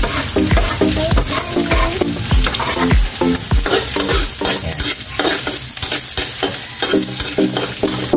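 Garlic, ginger and onion sizzling in hot oil in a wok, stirred with a spatula that clicks and scrapes against the pan.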